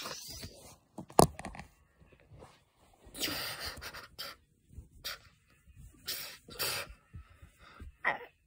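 Rustling and scraping of plush toys and fabric handled close to a phone's microphone, in short noisy bursts, with a sharp knock about a second in.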